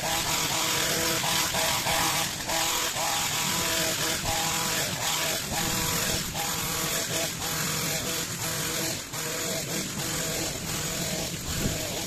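Petrol long-reach pole hedge trimmer running steadily at high revs, its small engine holding one even pitch while the cutter bar trims a hedge.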